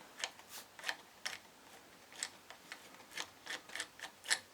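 Light, irregular metallic clicking, a dozen or so small clicks, from a Transit starter motor's pinion and planetary reduction gears being turned by hand.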